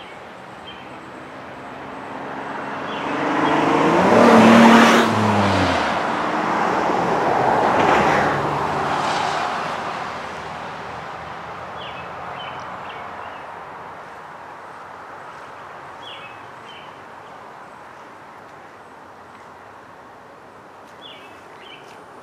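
Two road vehicles passing by in turn: the first is loudest about five seconds in, its engine note dropping in pitch as it goes past, and the second follows about three seconds later. After that the traffic fades to a quieter steady background with a few short high chirps.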